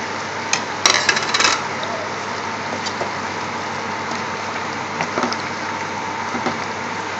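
Wooden spoon stirring a thick curry in a stainless steel pot, knocking against the pan, with a burst of clatter about a second in and a few lighter knocks later, over a steady hiss.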